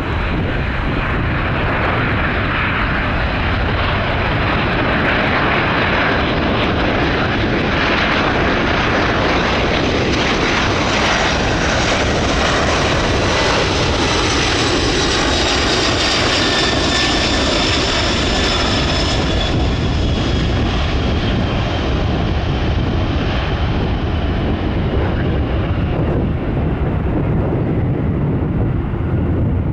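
Boeing C-17 Globemaster III's four turbofan engines running as the transport passes on landing: a steady rush of jet noise with a high whine that slowly falls in pitch, loudest about halfway through.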